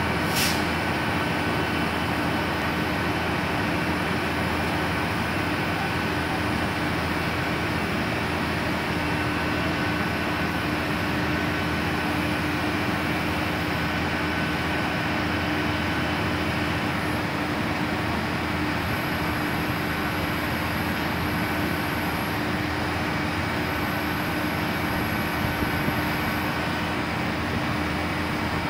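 Fire truck's diesel engine running steadily while it drives the tower ladder's hydraulics as the aerial is lowered: a constant hum with a fainter steady whine above it. A brief click comes right at the start.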